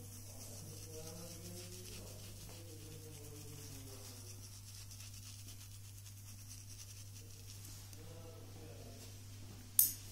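Steady low electrical hum with faint voices in the background, and a single sharp click just before the end.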